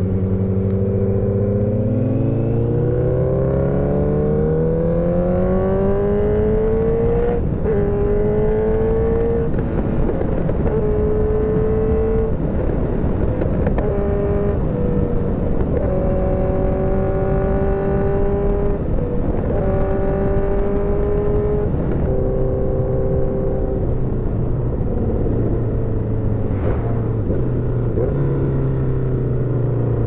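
Motorcycle engine under way, its pitch climbing steadily for the first several seconds as it accelerates, then running fairly steady with a few small changes in pitch, over a constant rushing noise.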